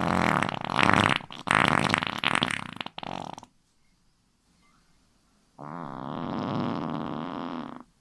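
Fart sound effects: a quick string of several farts over the first three seconds, then after a pause one longer, steady fart lasting about two seconds.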